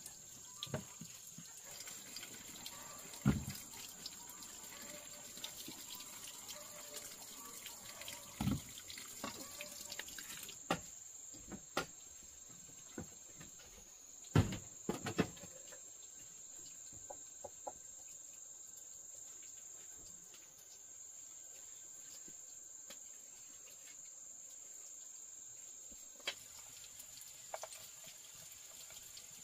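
Water running and splashing, with a steady high-pitched whine throughout and a few sharp knocks, mostly in the first half.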